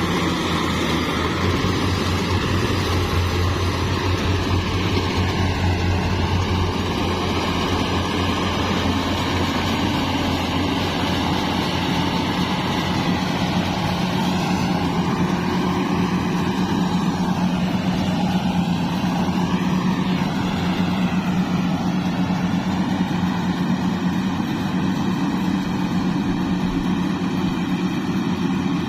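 Yanmar AW70V combine harvester's diesel engine running steadily at working speed, a continuous machine drone whose pitch shifts partway through.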